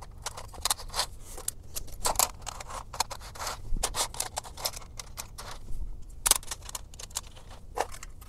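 Lionel O-scale model train cars being set onto three-rail track and coupled one after another. Irregular clicks, clacks and short scrapes come from their wheels and couplers.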